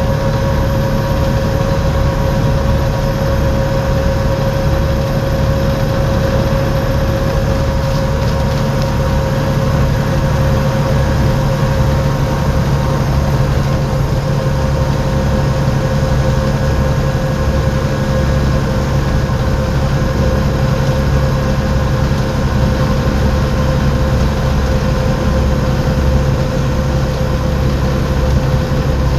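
Volvo B7TL double-decker bus's Volvo D7C six-cylinder diesel engine running steadily, with a steady turbocharger whistle over the low engine drone.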